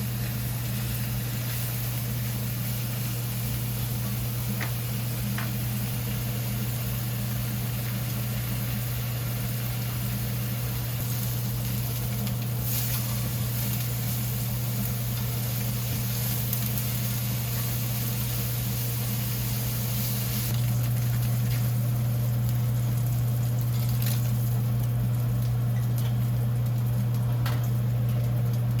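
Steady electric motor hum under a continuous hiss, typical of a running kitchen appliance. It steps up louder about two-thirds of the way through.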